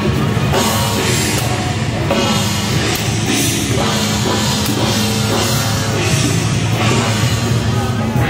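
Loud, continuous rock-style music with a drum-kit beat.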